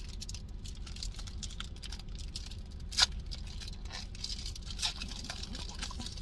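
Pokémon trading-card booster packs being handled: foil wrappers crinkling and cards rustling and tapping in quick small ticks. There is one sharp click about three seconds in, over a steady low hum.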